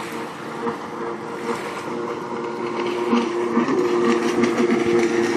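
Personal watercraft (jet ski) engine running at speed, a steady drone that grows louder as the craft approaches.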